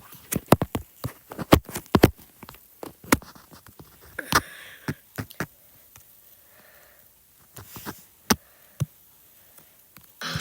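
A rapid, irregular series of sharp clicks and knocks, thick in the first three seconds and scattered after, with a short hissy burst about four seconds in.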